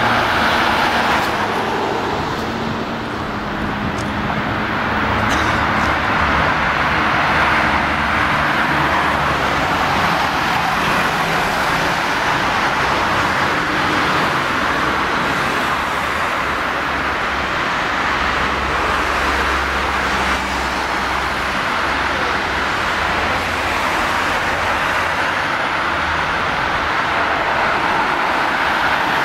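Steady road traffic: cars, vans and trucks passing on a busy multi-lane street, a continuous hiss of tyres with a low engine rumble.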